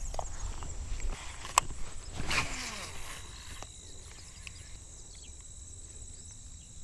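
Baitcasting rod and reel cast and then reeled in. A sharp click comes about a second and a half in among rustles and low wind rumble on the microphone. From about three seconds in there is a faint steady whine as the reel is cranked.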